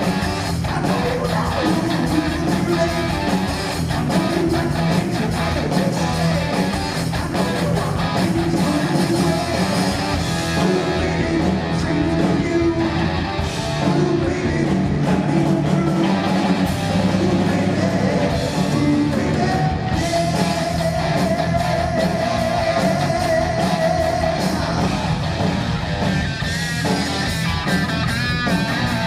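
Heavy metal band playing live: distorted electric guitar, bass and drums, with sung vocals in places. A long note is held a little past the middle, and near the end the guitar plays high, wavering, bent notes.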